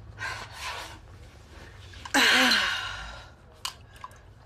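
A woman's loud, long sigh about two seconds in, a breathy exhalation with a falling groan in it, as she sinks back onto a sofa. Softer breaths come before it, and a single click follows.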